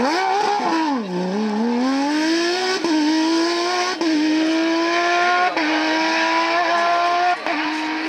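Porsche 997 GT3 rally car's flat-six engine pulling hard out of a corner. The revs dip, then climb, with four quick upshifts, and the sound fades as the car draws away.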